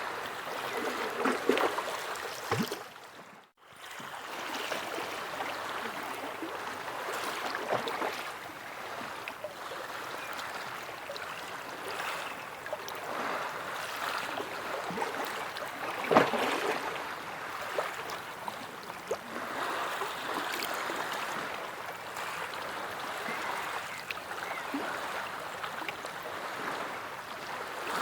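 Sea waves washing and lapping in a continuous swell of water noise, with small splashes and a louder splash about sixteen seconds in. The sound cuts out briefly about three and a half seconds in.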